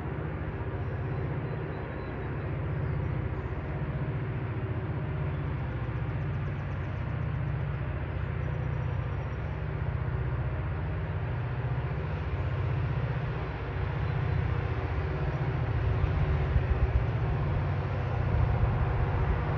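A steady low engine rumble, growing a little louder near the end.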